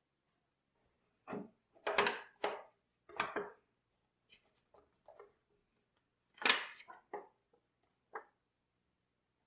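Hands handling a small picture frame on a wooden table while its back is opened and the photo taken out. There is an irregular string of knocks, clicks and scrapes, loudest about two and six and a half seconds in.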